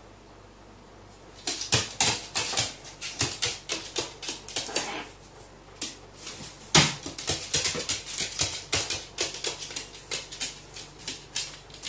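A pet crow's claws tapping and skittering rapidly on a wooden floor, mixed with its soft, short whining calls, the little voice it makes when handing an object back.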